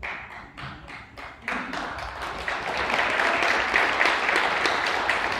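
Audience applauding: a few scattered claps, then a full round of clapping from about a second and a half in that holds steady.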